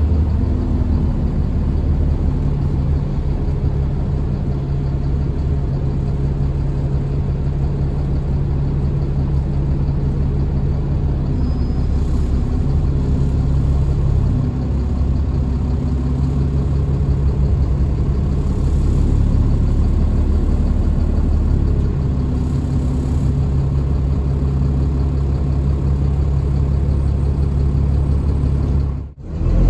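Diesel engine of an Alexander Dennis Enviro 400 Trident double-decker bus running steadily with a constant low drone, with a faint high-pitched whine that comes and goes a few times. The sound drops out briefly just before the end.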